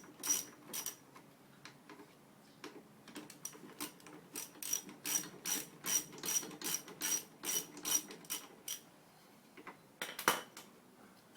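Ratchet wrench clicking in quick, even strokes, about three clicks a second, as brake caliper mounting bolts are backed out. There is one louder knock near the end.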